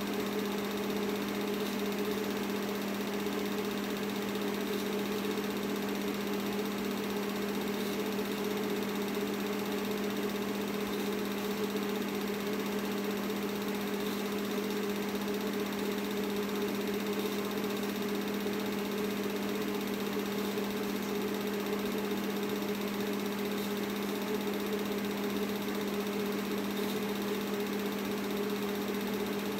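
Film projector running: a steady motor hum with a low tone and a higher one above it, unchanging throughout.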